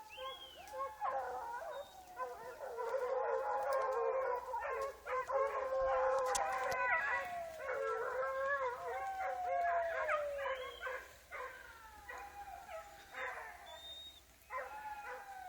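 Several hunting dogs howling and baying at once, many overlapping calls that rise and fall in pitch; the chorus is loudest through the middle and thins out to fewer calls near the end.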